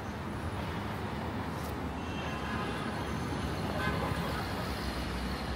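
Steady street bustle: traffic noise with faint voices and brief horn-like tones in the middle.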